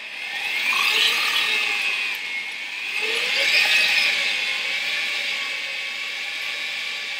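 Electric stand mixer whirring as its whisk beats meringue at speed, with a steady whine that swells louder about a second in and again near the middle.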